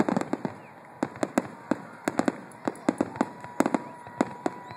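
Fireworks grand finale: aerial shells bursting in rapid, irregular succession, several sharp bangs a second.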